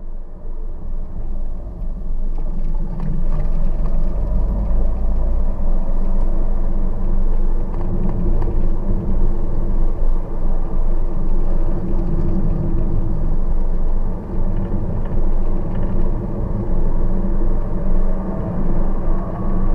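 A car driving along a road: steady engine and road noise, with a faint rising tone near the end.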